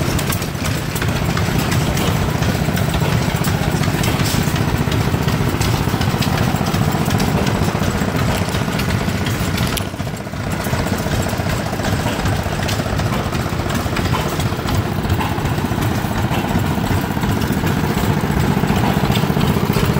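Old gasoline engines running steadily with a rapid, even putter, briefly dropping in level about halfway through.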